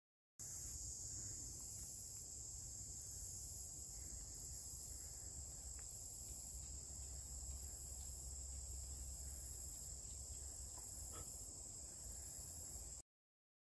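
Steady high-pitched chorus of summer insects, unbroken throughout, with a faint low rumble underneath.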